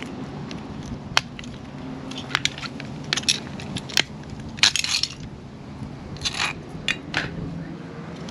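A 1/24-scale die-cast 1967 Ford Mustang model being crushed and broken apart. An irregular string of sharp cracks, snaps and metallic clicks comes through, with a few short crunching bursts, the loudest about a second in and near the middle.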